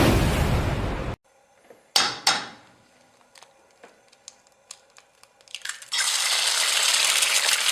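Cartoon sound effects: a loud rushing noise cuts off about a second in, then two sharp clinks with a short ring and a scatter of faint light clicks, and from about six seconds a steady hiss.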